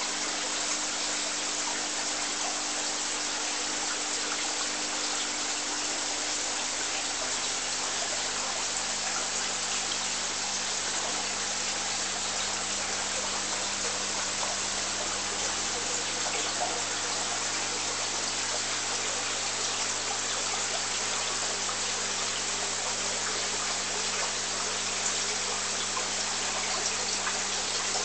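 Aquarium water trickling and splashing steadily, with a steady low hum underneath.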